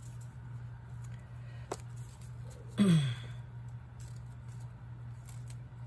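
A steady low hum with a faint click; about three seconds in, a person makes a brief vocal sound that drops in pitch.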